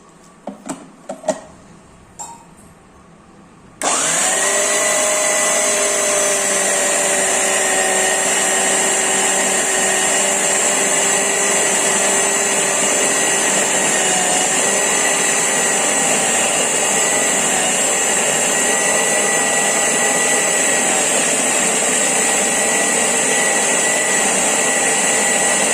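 A few sharp clicks, then a Preethi Zodiac mixer grinder's motor starts about four seconds in and runs steadily with a high whine, kneading wheat flour and water into dough in the jar. The pitch sags slightly about halfway through.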